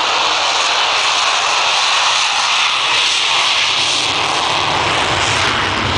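Avro Vulcan's four Rolls-Royce Olympus turbojets running, a loud, steady jet rush.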